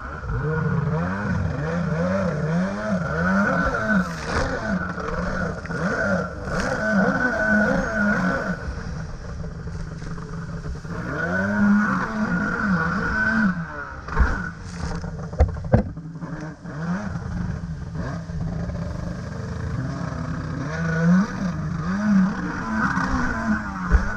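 Two-stroke stand-up jet ski engine running hard, its pitch rising and falling rapidly again and again as the throttle is worked through turns. Spray hisses throughout, and a few sharp knocks come as the hull slaps the chop.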